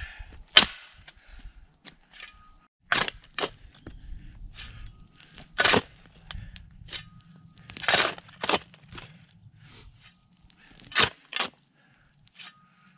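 A steel digging tool striking rocky ground: about eight sharp, irregular impacts, several in quick pairs, the loudest about half a second in.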